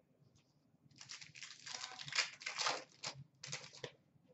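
Trading-card pack wrapper being torn open and crinkled by hand: a crackling rustle for about two seconds, then a shorter burst.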